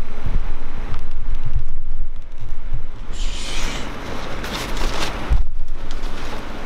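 Wind buffeting the microphone: a loud, uneven low rumble that comes in gusts, with a brief hissing rush about three seconds in.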